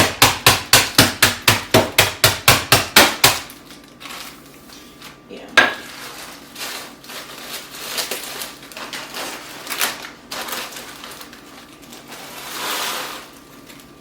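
Dry instant ramen noodles being pounded to crush them, about four rapid blows a second, stopping about three seconds in. Quieter handling follows, with one sharp knock midway and a soft rustle near the end.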